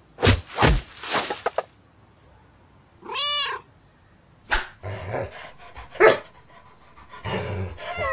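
A few sharp knocks or thuds, then a cat meows once, a short call that rises and falls in pitch, followed by more scattered clicks and thuds.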